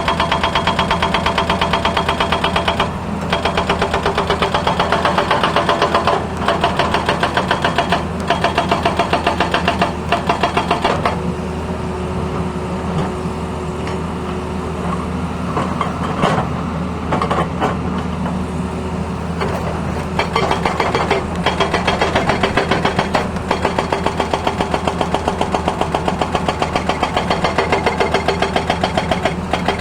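Tata Hitachi excavator at work: its hydraulic breaker hammers in a rapid, even rhythm over the running diesel engine. The hammering eases for a stretch in the middle, leaving mostly the engine, then picks up again.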